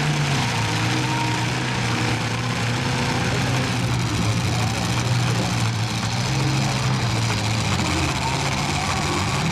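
Demolition derby truck engines running hard, one rising in pitch as it revs at the start, then holding a steady drone over a haze of arena noise.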